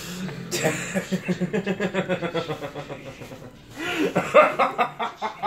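A man in a fit of laughter: fast, rhythmic bursts of about five or six a second in two long runs, with a brief catch of breath a little past the middle.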